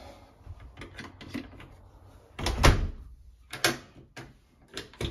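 A door fitted with a security door latch being unlatched and opened: a series of clicks and knocks, the loudest a single clunk about two and a half seconds in.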